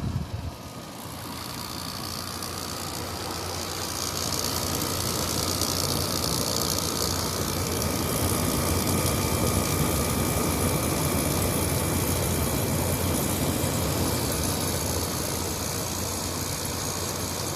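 Kenmore PlasmAire low-profile window air conditioner running on cool: its LG compressor hums steadily under the rush of the fan, growing louder over the first few seconds and then holding steady. A light rattle comes along with it, which the owner takes for the side panels rattling.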